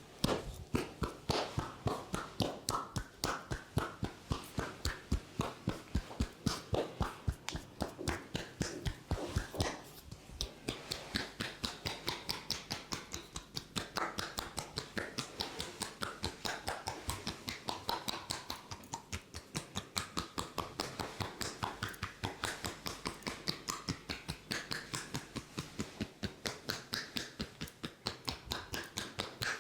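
Hands tapping rhythmically on a head in a head massage: quick, even strikes, several a second, with no let-up.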